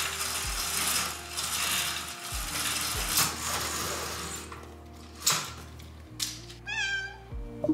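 Roller-shade bead chain and clutch rattling steadily as the blind is pulled up, for about four seconds, followed by a few clicks. Near the end a cat gives one short meow.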